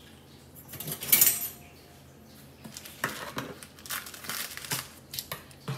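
Plastic wrapping on a pack of puff pastry sheets crinkling as it is handled and snipped open with scissors, in irregular short rustles. The loudest rustle comes about a second in.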